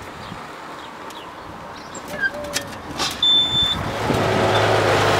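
Street traffic noise. About three seconds in there is a short high beep, and from about four seconds in a heavy engine runs steadily and louder.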